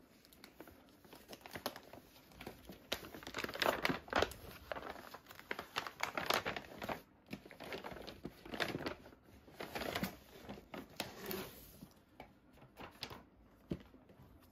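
Brown kraft paper parcel wrapping being torn open and crumpled by hand, in irregular bursts of crinkling that die down near the end.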